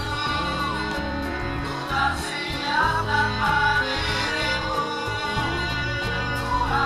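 Background music with a sung melody over a steady instrumental accompaniment.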